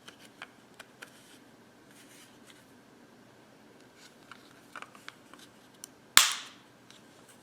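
Small plastic clicks and ticks of a handheld wireless mouse's battery compartment being handled as its cover is taken off and a AAA battery fitted, with one loud sharp snap about six seconds in.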